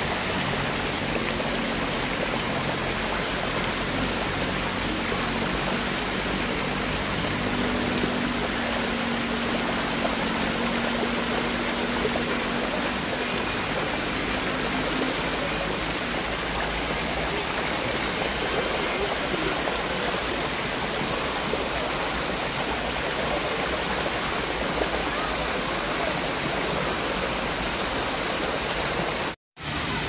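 Sai Yok Noi waterfall: water pouring and splashing in a steady rushing noise.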